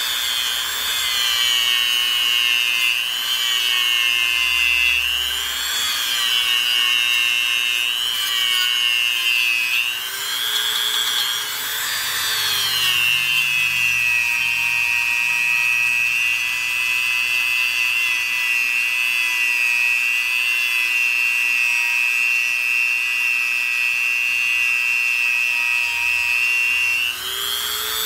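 Dremel rotary tool spinning a small buffing pad against a steel lockpick blade, a high electric whine. Its pitch dips and recovers several times as the pad is pressed on and eased off the blade, then holds steady through the second half, and it stops near the end.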